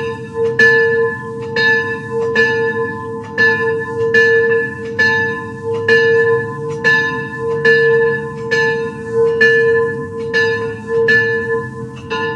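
Recording of a single bell tolling the same note over and over, about once a second, each strike ringing on into the next, over a low steady hum.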